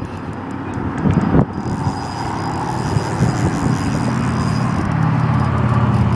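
Road traffic passing on a bridge, with a vehicle's engine hum growing louder over the last couple of seconds as it approaches. There are a couple of short knocks about a second in.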